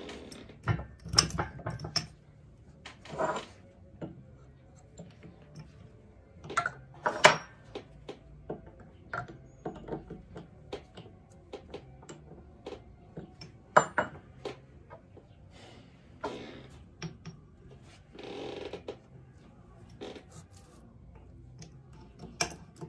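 Metal tools and parts handled on a workbench while a shop-made valve-guide press is shimmed and set up: irregular clicks, clinks and knocks, a few of them sharp and loud, with a longer scrape a few seconds before the end.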